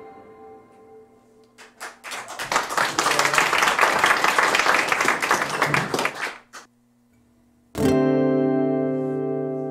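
The last notes of a steel-string acoustic guitar fade out, then an audience claps for about five seconds. After a moment of quiet, the guitar strikes a full chord near the end and lets it ring.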